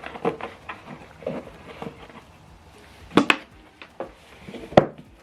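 Unboxing handling noise: soft rustling and light clicks as packaging and accessories are moved about, with two sharper knocks, one about three seconds in and one near the end, as items are set down.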